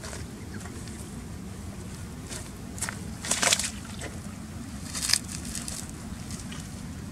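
Water sloshing and splashing in a few short bursts, the loudest about three and a half seconds in, over a steady low rumble.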